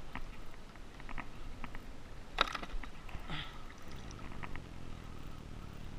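Scattered clicks and knocks of fishing gear being handled on a plastic kayak, over a low wash of water and wind, with one sharp crack about two and a half seconds in.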